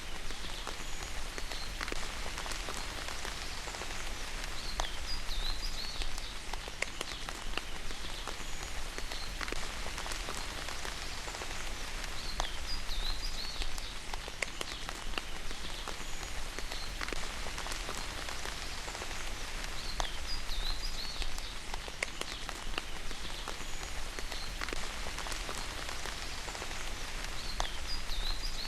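Steady rain falling, with many scattered drops pattering. A short high chirping call repeats about every four seconds over it.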